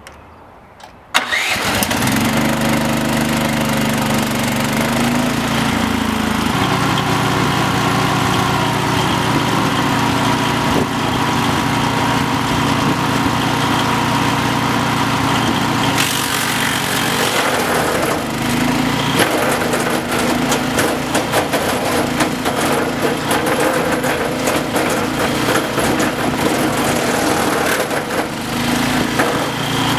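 Wood chipper's Briggs and Stratton petrol engine key-started, catching about a second in and then running steadily. From a little past halfway it is joined by many irregular cracks and snaps as the chipper takes in and splinters wood.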